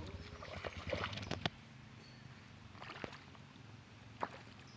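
Water splashing and sloshing during an elephant's bath, busiest in the first second and a half, then a few separate sharp splashes.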